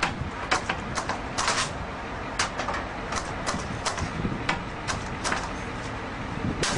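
Irregular sharp metal clicks and knocks, one or two a second and sometimes in quick clusters, from a pry bar being worked against the lock area of a steel expanding security gate.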